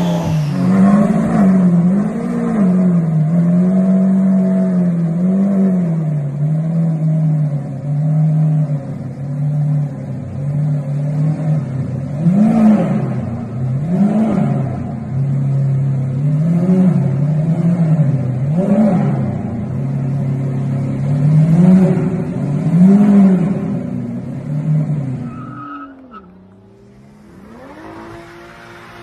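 Lamborghini supercar engines revving again and again, the pitch rising and falling every second or two over a steady running note. About 26 seconds in the sound drops away, and a quieter engine starts to rise in pitch.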